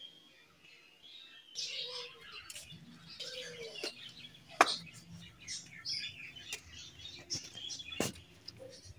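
Small birds chirping and twittering throughout, with two sharp knocks: a loud one about halfway through and another near the end.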